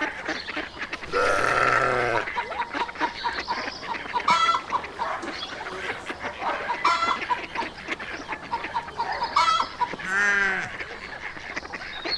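Farmyard poultry: geese honking in short calls a few seconds apart and chickens clucking throughout, with two longer calls, one about a second in and one about ten seconds in.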